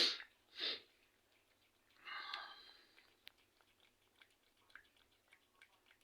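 Cat chewing and licking wet food in sauce: faint, irregular small clicks and smacks, with a brief louder noisy sound about two seconds in.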